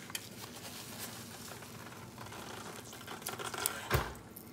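Soft kitchen handling sounds over a faint hiss: a few light clicks, then a dull knock about four seconds in.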